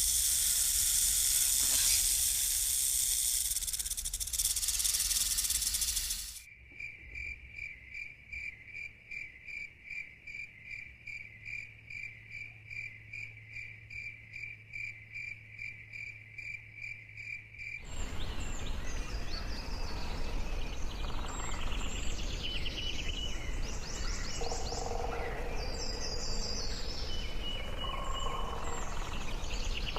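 Rainforest wildlife sounds in three stretches: a loud, even high hiss for about six seconds, then a steady pulsing insect chirp repeating about three times a second, then a mix of varied bird calls and insect chirps.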